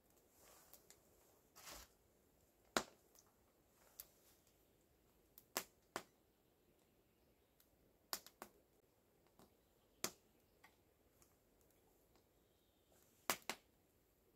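Wood fire crackling: about a dozen sharp, irregular pops, the loudest one about three seconds in, with near silence between them.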